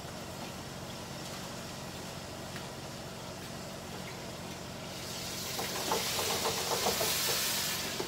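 Chicken frying in hot oil: a loud sizzle with crackling rises about five seconds in and lasts about three seconds, over a steady low hum.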